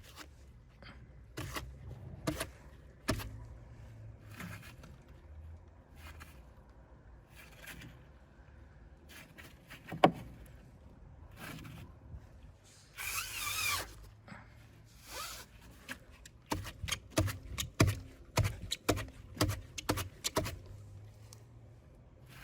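A jacked-up car wheel being turned by hand while a hand holds the coil spring: scattered clicks and knocks, a short scrape about halfway through, and a quick run of clicks toward the end.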